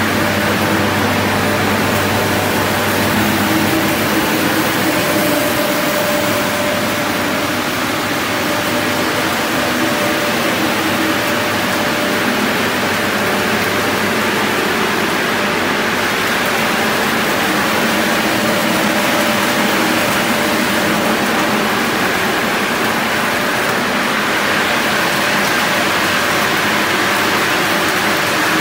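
Plastic film squeezing-granulating machine running: a steady, loud mechanical din from its motors and rotating drum, with a low hum and a few held tones underneath.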